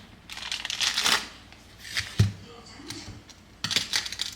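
Knife scraping cream cheese onto a bagel in a few quick strokes, with one dull thump about two seconds in.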